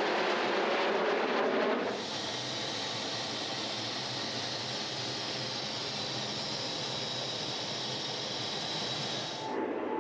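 Jet fighters flying past overhead with a roar for the first two seconds. It then cuts abruptly to the steady rushing of air and engine noise inside a jet's cockpit in flight, with a thin high whine. Near the end it cuts back to the roar of jets passing.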